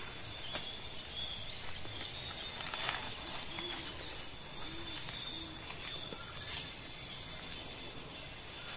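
Outdoor nature ambience: a steady high insect drone with short chirps and a few faint knocks.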